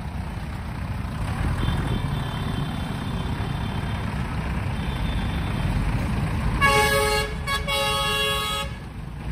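Shibaura V52 tractor's engine running steadily, and a vehicle horn sounds twice, a short blast then a longer one, near the end.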